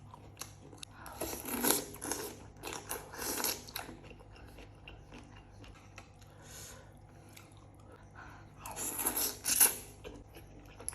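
A person eating jengkol noodles: bites and chewing that come in two spells, one about a second in and another near the end.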